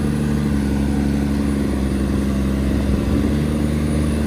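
Claas Xerion tractor's diesel engine running steadily at low revs, with no rise in pitch, while it slowly drags a weighted tractor-pulling sledge; it sounds as if it is only on tick over.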